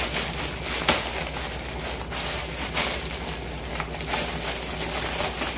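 Clear plastic packaging crinkling and rustling as hands handle and open a bagged suit, in a run of irregular crackles.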